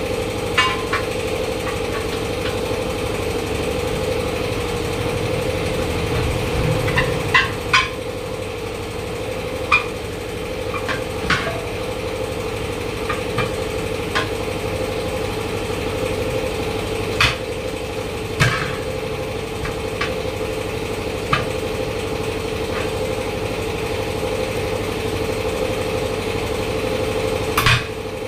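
Steel tyre levers clinking and knocking sharply against the steel wheel rim at irregular intervals as the bead of a large JCB tyre is levered over the rim, over a steady engine-like drone.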